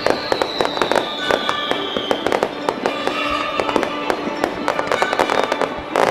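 Fireworks bursting and popping several times a second, with the show's music playing underneath.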